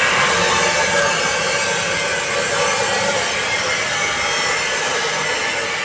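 A power tool running steadily, giving a loud, even grinding hiss.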